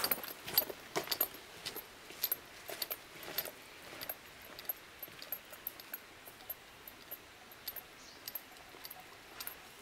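Footsteps on a dirt forest path, each step a short crunching tick, about two a second. They grow steadily fainter as the walker moves away.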